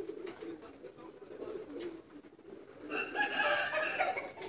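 Domestic pigeons cooing steadily. About three seconds in, a louder, higher bird call rises over them for about a second and a half.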